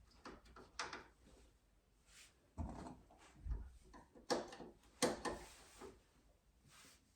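Irregular clicks and clunks of hard parts being handled and pressed together while a plastic spacer and small retaining clip are fitted onto a snowbike footpeg, with a dull thump about three and a half seconds in.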